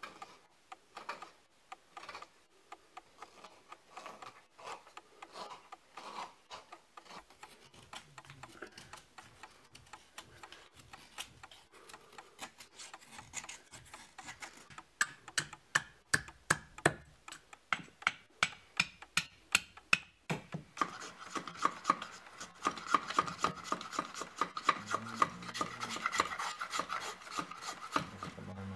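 Wooden spoon being hand-carved with a knife: short shaving and scraping strokes on the wood, faint at first. About halfway in they turn into sharp clicking cuts about three a second, and in the last third into dense, fast scraping.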